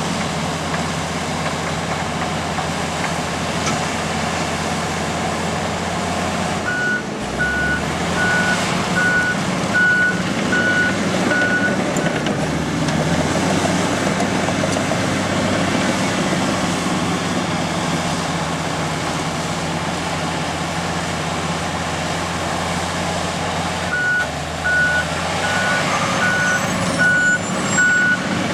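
Komatsu D85 bulldozer's diesel engine running steadily under load. Its reverse alarm beeps about twice a second while it backs up, once for several seconds about a quarter of the way in and again near the end.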